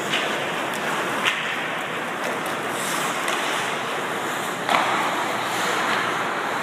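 Ice hockey play: a steady hiss of skates on the ice with sharp clacks of sticks and puck, three of them, the loudest nearly five seconds in.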